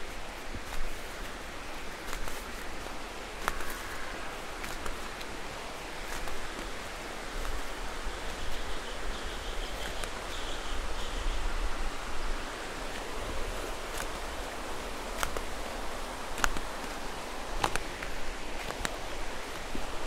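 Footsteps on a trail, with scattered clicks of steps and rustle, over a steady rush of running water from a stream.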